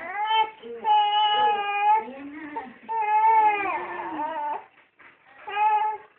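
A two-month-old baby crying in drawn-out wails: four cries with short breaks between them, the last one short and near the end.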